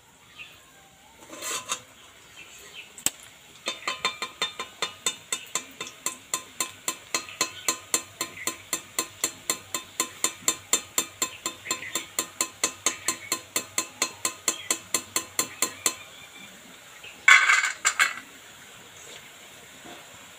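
Perforated metal frying spoon tapping against the rim of a metal karahi in a steady run of light metallic clinks, about four a second for some twelve seconds, shaking the oil off a spoonful of fried nimki. A short, louder metal clatter comes near the end.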